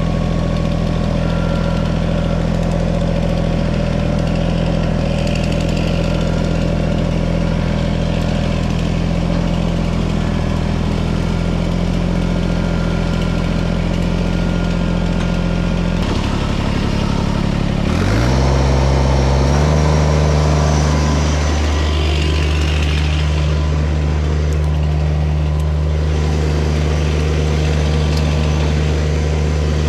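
Kubota BX compact tractor's diesel engine running steadily. About two-thirds of the way through it speeds up with a rising pitch, then holds at the higher speed.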